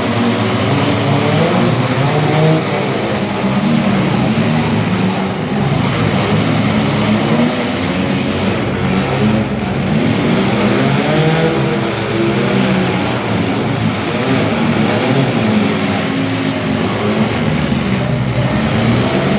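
Several demolition derby car engines revving and racing at once, loud and continuous, their pitches rising and falling over each other.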